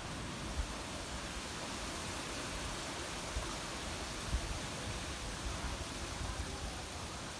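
Wind rushing through trees and foliage in a steady hiss, with gusts buffeting the phone's microphone in a few low thumps.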